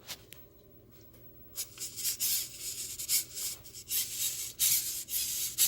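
Handling noise: a quick run of short rustling, rubbing scrapes that starts after about a second and a half of quiet.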